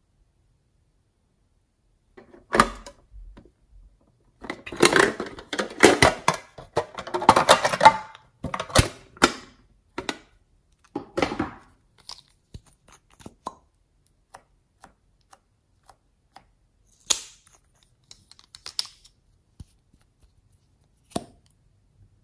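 Plastic markers and pens being handled: a dense run of clicking and rustling from about four to eight seconds in, then scattered single clicks and taps.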